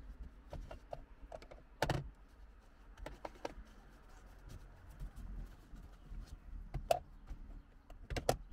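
Irregular light clicks and knocks from a small detailing brush being worked over the plastic centre console trim around the gear lever and handbrake. The sharpest knocks come about two seconds in, just before seven seconds and near the end.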